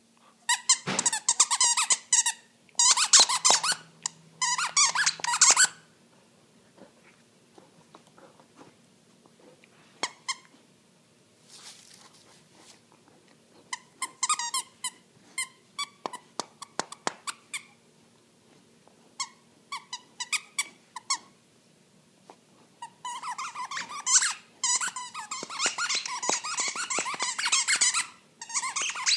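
Plush skunk squeaky toy squeaking as an Akita puppy chews it: fast runs of squeaks for the first few seconds and again through the last six or so, with scattered single squeaks and pauses in between.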